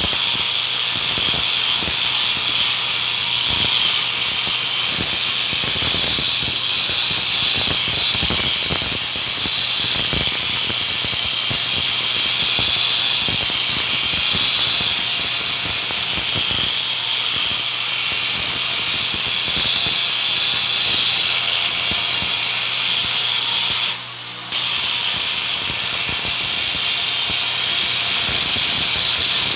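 Stick (shielded metal arc) welding: the electrode's arc crackling steadily over a low hum, cutting out for about half a second some five seconds before the end.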